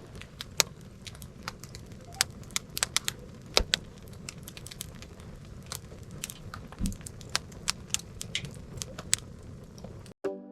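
Firewood burning in a campfire, crackling with irregular sharp pops over a low steady rush of flame; it cuts off abruptly near the end.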